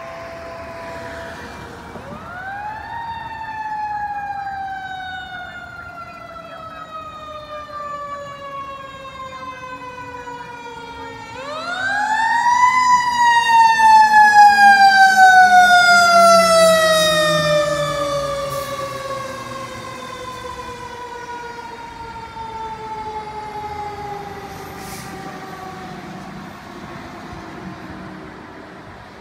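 Fire engine siren sounding as the truck goes by on an emergency run. It rises quickly twice, about two seconds in and again near the middle, and each time falls slowly over many seconds. It is loudest just after the second rise.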